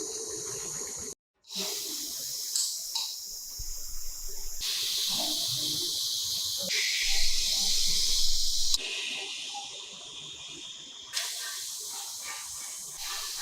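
A steady high-pitched hiss, like spray from a nozzle, in several short cut-together stretches that start and stop abruptly, with a moment of silence about a second in.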